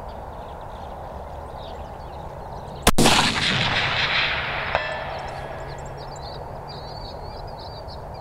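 Single rifle shot about three seconds in, a cold bore shot whose report rolls away for about two seconds. Just under two seconds after the shot comes a faint short ring of the bullet striking a steel target at 480 yards. Birds chirp faintly afterwards.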